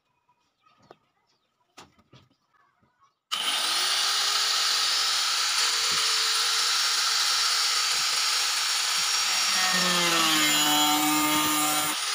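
A few faint handling clicks, then about three seconds in a handheld angle grinder with a thin cutting disc switches on and runs with a steady high whine. Near the end its pitch drops and holds lower as the disc cuts into the plastic jug.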